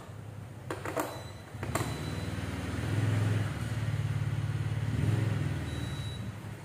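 Rice cooker lid clicking shut with a couple of sharp clicks in the first two seconds, then a steady low rumble as the cooker is turned round on a plastic rotating display stand.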